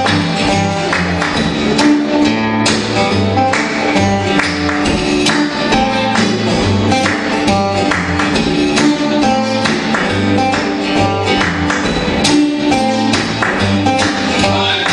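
Two acoustic guitars strummed together in a steady rhythm, an instrumental passage without singing.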